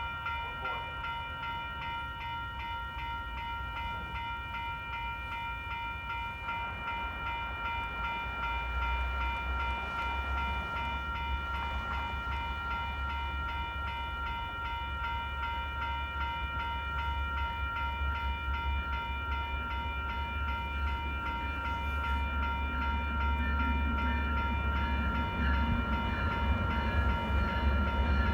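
Railroad grade-crossing bells ringing steadily as a Metra train approaches, its low rumble growing louder toward the end.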